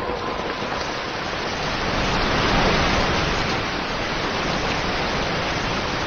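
Steady rain falling, an even wash of noise without breaks.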